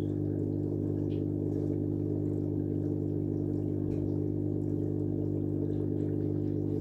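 Small electric aquarium pump humming steadily in a low, even drone.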